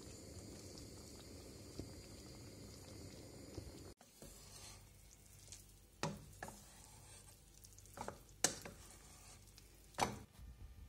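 Cooking in a metal pot on the stove: at first a steady low noise from the pot. Then a wooden spoon stirs and scrapes rice through a sauce, knocking sharply against the pot four times, loudest near the end.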